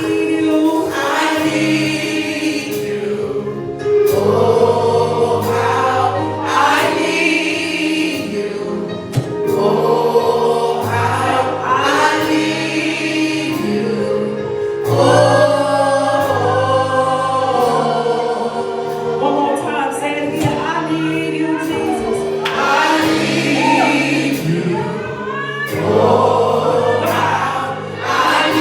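Gospel choir singing a worship song with band accompaniment: sustained bass notes under the voices and a steady drum beat.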